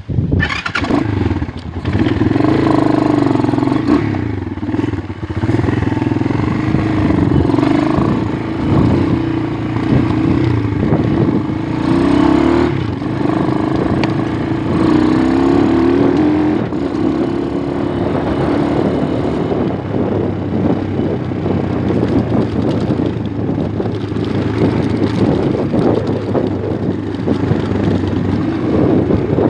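Dirt bike engine starting up, then running as the bike is ridden along a dirt track, its pitch wavering with the throttle.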